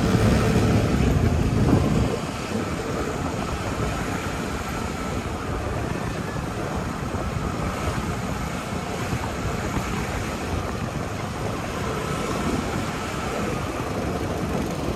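A small motor vehicle's engine hums for the first two seconds and drops away. After that, a steady rush of wind noise on the microphone continues while the camera moves along.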